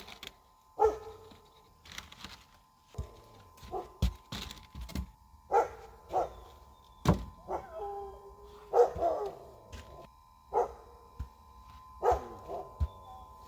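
A dog barking and yelping in short calls several times, among a series of sharp knocks and thunks.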